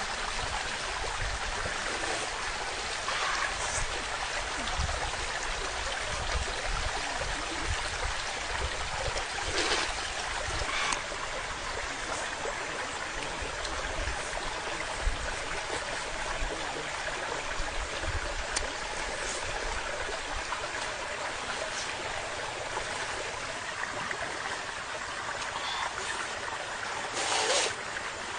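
Steady rush of flowing stream water, with a few brief sounds over it, the loudest near the end.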